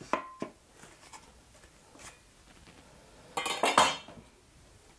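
A couple of light knocks, then, about three and a half seconds in, a short metallic clatter with a little ringing as a steel tri-square is set down on wooden floorboards.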